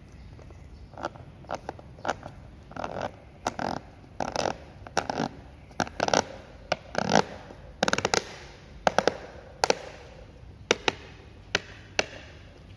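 The plastic knob of a Makita EK7651H power cutter's air-filter cover being twisted by hand, giving a run of short plastic scrapes and clicks about one or two a second, turning into sharper clicks in the second half.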